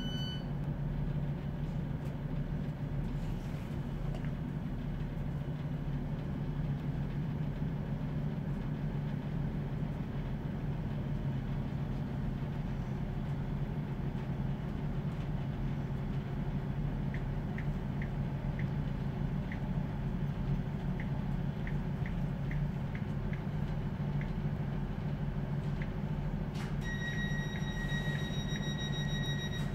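The underfloor diesel engine of a Class 156 diesel multiple unit idling steadily while the train stands at a platform, a low even hum heard inside the carriage. A few faint ticks come in the latter half, and a steady high-pitched tone sounds for the last few seconds.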